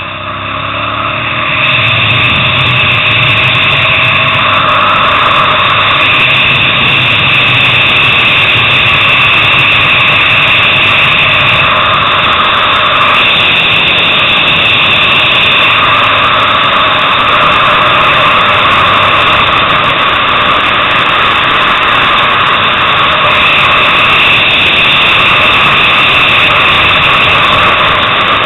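Sport motorcycle engine running hard at high revs, heard from the bike's onboard camera under heavy wind rush. It swells about two seconds in, then stays loud, its pitch shifting up and down every few seconds as the throttle is worked.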